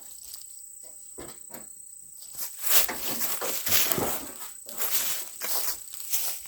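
Steady high-pitched insect chirring throughout. A couple of seconds in, repeated rustling and scraping handling noises start and carry on, louder than the insects.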